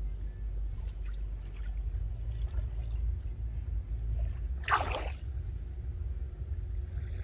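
Small waves lapping at the shore of a calm bay: a steady low rumble with one brief splash about five seconds in.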